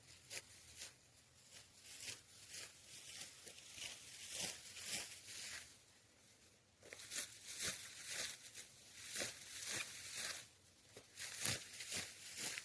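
Repeated rustling, crunching strokes, a few each second, with a short pause about six seconds in.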